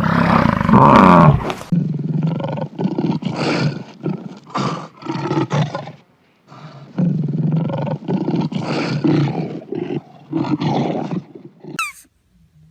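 A large animal's loud roaring call, followed by a long series of short, deep grunts about two a second, with a brief pause midway.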